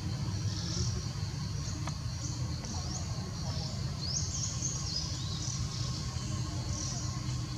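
Forest background of high-pitched insect and bird chirping over a steady low rumble, with a quick rising chirp about four seconds in.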